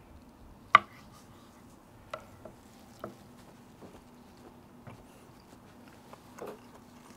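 One sharp knock about a second in, a steak knife on a wooden cutting board, then a few faint clicks and soft chewing of steak over a faint steady hum.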